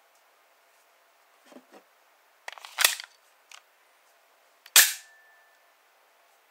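SIG Sauer P320-M17 9mm pistol being handled with its slide locked back: two soft knocks, then a cluster of metallic clicks about two and a half seconds in. A little under five seconds in comes a single loud metallic snap as the slide is released and runs forward into battery, leaving a short metallic ring.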